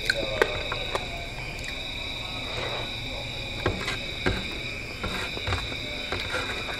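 Fingers tapping and scraping on a plastic tray while picking up leftover rice, giving scattered sharp clicks, the loudest just after the start and around four seconds in. Under them runs a steady high insect trill.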